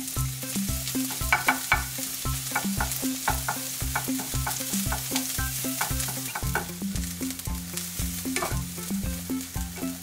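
Dried small anchovies and minced garlic sizzling in oil in a frying pan over low heat. A wooden spatula clicks and scrapes against the pan as they are stirred.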